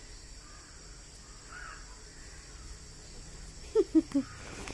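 Outdoor background with a steady high insect buzz and faint chirps. Near the end there are three short, loud bird calls in quick succession.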